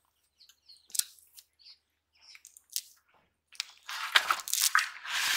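A hand handling freshly caught fish in a plastic-lined basin: scattered soft wet clicks and rustles, then a denser run of rustling and squishing near the end.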